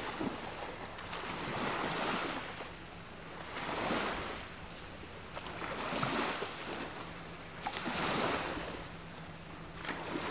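Small waves washing in at the water's edge, the wash swelling and fading about every two seconds.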